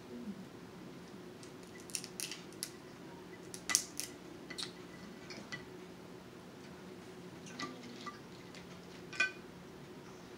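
Snow crab leg shells cracked and picked apart by hand: scattered sharp cracks and clicks of shell, the loudest a little under four seconds in. A steady low hum runs beneath.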